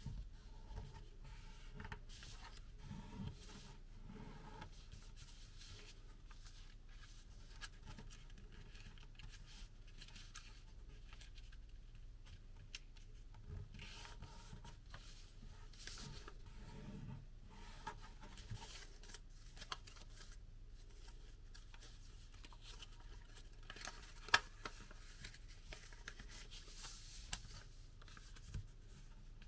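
A sheet of paper being folded and creased by hand: faint rustling and crackling of the paper with small clicks as folds are pressed flat, and one sharp tap late on.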